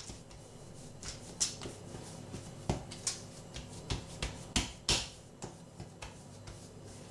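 Hands patting and pressing soft pastry dough into a ball on a worktop: irregular soft pats and light taps, the loudest about five seconds in.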